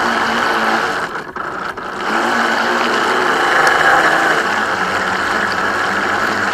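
Radio-controlled speedboat running on the water: its motor hums steadily under a rush of water. The sound drops sharply twice about a second in, then comes back at full level.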